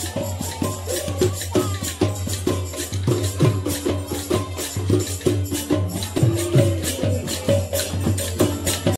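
Live folk percussion for dancing: a barrel drum beaten in a fast, steady rhythm under continuous jangling metal percussion.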